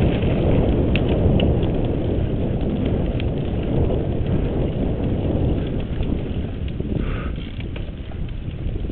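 Cannondale mountain bike rolling fast over a rough dirt and gravel trail: steady tyre noise with the frame and parts rattling and clicking over the bumps, easing a little near the end.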